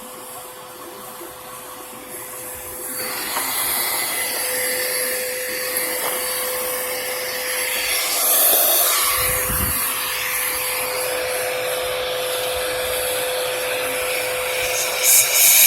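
Vacuum cleaner running with a steady motor whine and rushing air, getting louder about three seconds in; a brief low thump about nine and a half seconds in.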